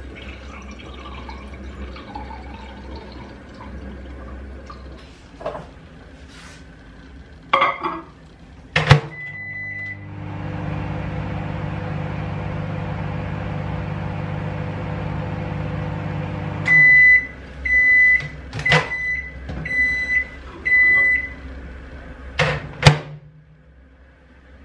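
Microwave oven: a door shuts with a knock and a button beeps once, then the oven runs with a steady hum for about six seconds. It ends with five high beeps about a second apart, and the door is opened and shut with knocks near the end.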